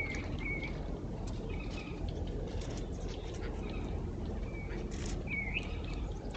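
Birds calling outdoors: short curved chirps repeated every second or so, with a few sharp clicks, over a steady low background rumble.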